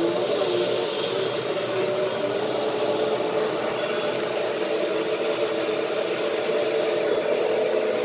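Upright vacuum cleaner running steadily: a constant motor drone with a thin high whine over it.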